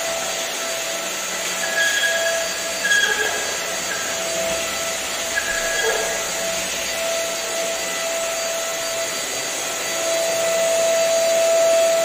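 Deerma DX700S corded stick vacuum cleaner running steadily while its floor head is pushed over floor tiles: an even motor whine with rushing airflow hiss, and a few brief higher whistles in the first half. The unit is two years old and, the owner says, still working without trouble.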